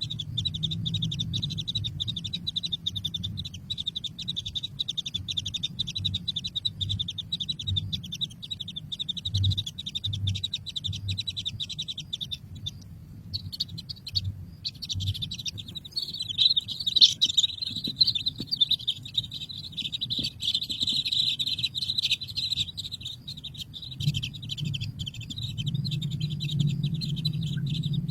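Baby birds chirping continuously, a dense, rapid high-pitched twittering that breaks off briefly about halfway through, over a low hum.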